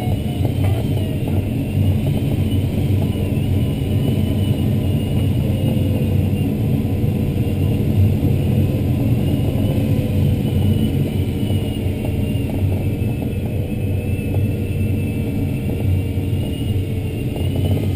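Steady rushing airflow around an ASK-21 glider's canopy, heard inside the engineless two-seat cockpit in flight. A faint high tone wavers slowly up and down over it.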